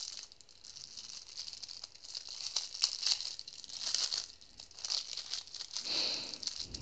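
Clear plastic packaging crinkling and crackling in irregular small bursts as it is opened by hand to take out a small resin mould.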